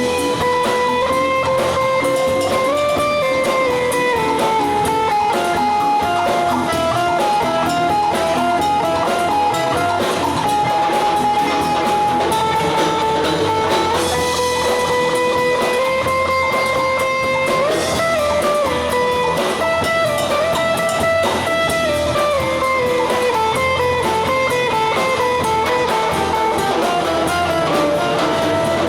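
Live instrumental band music: a guitar carrying a lead melody of held, sliding notes over drums and accompaniment.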